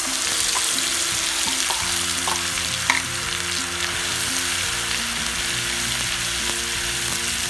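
Blended onion paste hitting hot sesame oil in a nonstick pan, setting off loud, continuous sizzling as it fries, while a spoon stirs it through the oil. A single sharp tap sounds about three seconds in.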